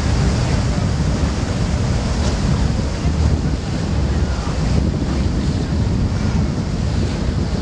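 Wind buffeting the microphone over the steady rush of water from a motor yacht under way.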